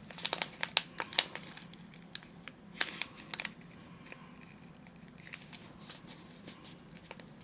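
Crinkling and crackling of a plastic sticker packet as a long sealing sticker is picked at and peeled back. A run of sharp crackles over the first three and a half seconds, then only faint handling.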